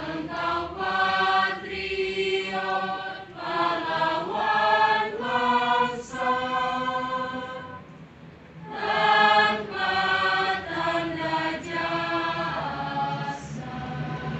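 A group of students singing together as a choir, in phrases of long held notes, with a short break about eight seconds in before the singing resumes.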